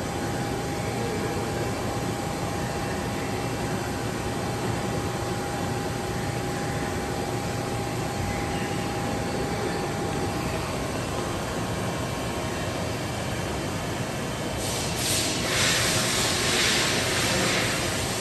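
Large CNC vertical turning lathe running, a steady mechanical hum with a thin whine through it, and a louder hiss for a few seconds near the end.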